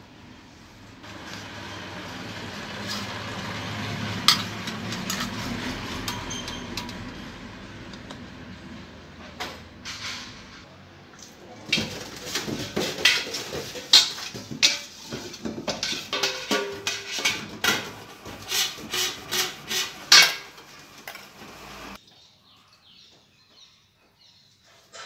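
A steady rushing noise for the first ten seconds or so. Then a stainless steel pot is scrubbed and handled at a kitchen sink, with many sharp metal clanks and scrapes that stop abruptly about three seconds before the end.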